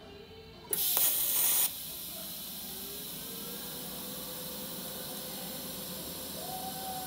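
TIG welding arc on stainless steel tube: it strikes about a second in with a loud burst of hiss lasting about a second, then settles into a steady hiss as the weld is run.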